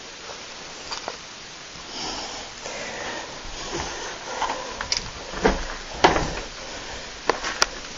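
Footsteps and scattered knocks and scuffs of someone moving through an empty room, with two sharp clicks near the end.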